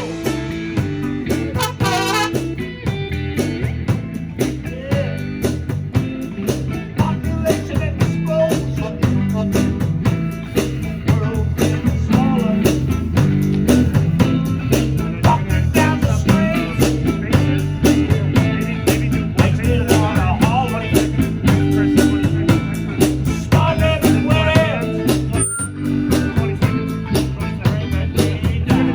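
Live band playing a song on a sound check: electric guitar and bass over a steady drum-kit beat, with a singer coming in at times.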